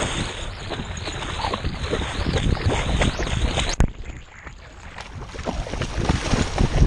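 Water splashing and sloshing around a swimming dog, heard close up from a camera mounted on its back. Just before halfway there is a sharp click, and the splashing turns duller and quieter for about a second as water washes over the camera, then builds again.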